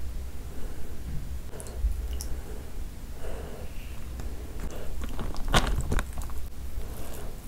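Thick curry gravy poured from a glass bowl over rice and boiled quail eggs, then a hand squishing and mixing the rice into the gravy. A couple of sharp knocks about five and a half seconds in are the loudest sounds.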